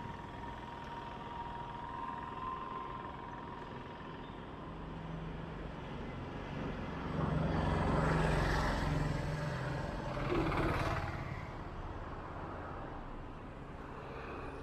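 Motor vehicles passing along a street over a steady low engine hum, with two louder passes about halfway through.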